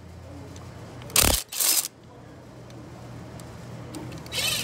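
Hand ratchet clicking in two short bursts about a second in and again near the end, as a socket on a long extension works the bolts of a driveshaft flange. A faint steady low hum runs underneath.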